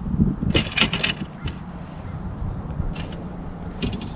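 Low, steady rumble of wind on the microphone, with a quick run of sharp clicks and rattles about half a second to a second in and a few more near the end.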